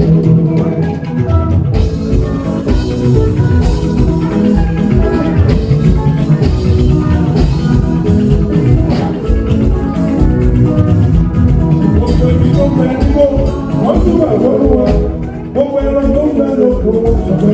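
Juju band music playing with a steady percussion beat and stringed instruments.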